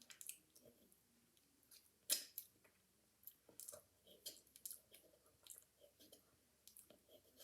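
Faint wet mouth sounds and lip smacks of someone licking a Brain Licker roll-on liquid candy, with scattered small clicks; the sharpest smack comes about two seconds in.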